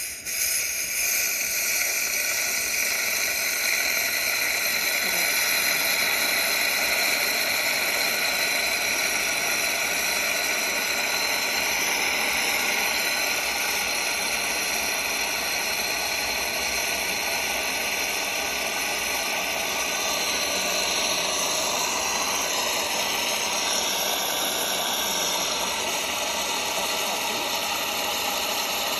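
Teslux automatic espresso machine with milk frother running its two-shot latte cycle: a steady mechanical hiss that goes on without a break.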